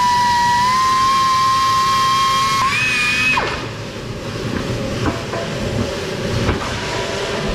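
Air-powered grinder whining steadily under load as it bores out a hole in a steel plate. About three seconds in it revs higher as it comes free, then spins down. After that there is lower shop noise with a few faint metal knocks as a steel tube is fitted into the hole.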